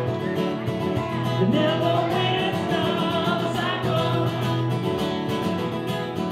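Live acoustic guitar with a voice over it, a duo playing the closing bars of a song.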